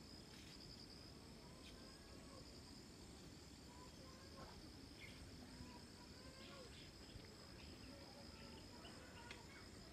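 Near silence: faint field ambience with a steady high-pitched insect trill and a few faint short chirps.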